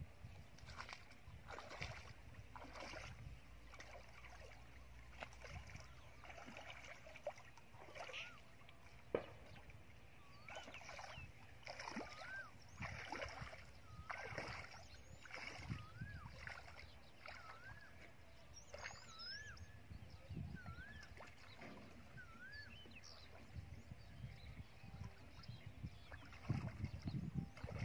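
Legs wading through shallow, muddy water, a soft splash with each step about once a second. In the middle stretch a small bird repeats a short rising-and-falling chirp. Louder low rumbles near the end.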